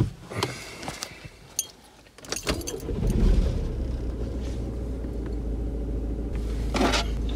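Vauxhall Astra J 1.6 CDTi diesel engine, heard from inside the car: a few light clicks, then about three seconds in it cranks, fires and settles into a steady idle.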